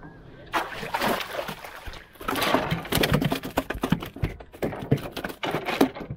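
A freshly caught fish being handled and struggling in a wooden canoe: a dense run of irregular slaps, knocks and rustles with some splashing. It starts about half a second in, breaks off briefly near the two-second mark, then carries on.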